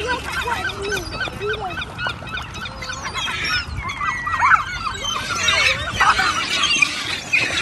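A flock of waterbirds (gulls, ducks and swans) gathered for bread, calling over one another: many short, rapid calls overlapping throughout.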